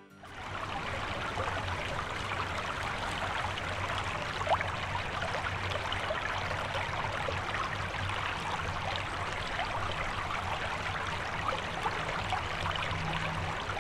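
Creek water running steadily, an even rushing noise, with a single brief tick about four and a half seconds in.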